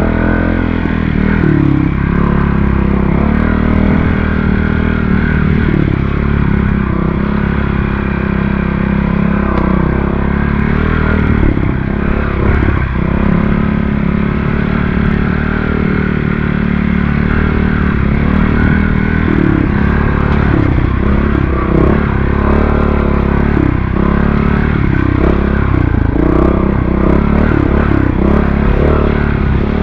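Montesa Cota 4RT trials motorcycle's four-stroke single-cylinder engine running under way, its pitch rising and falling again and again with the throttle.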